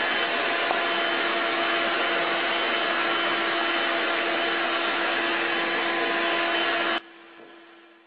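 Vacuum cleaner running steadily with a constant hum, dropping away abruptly near the end.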